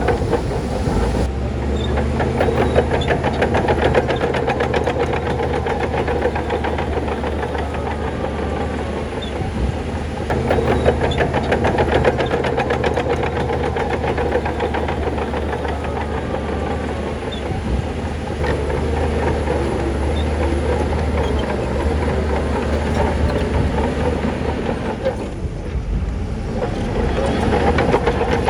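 Heavy diesel earthmoving machinery running steadily, its engine working with a rapid metallic clatter over it, easing off briefly near the end before picking up again.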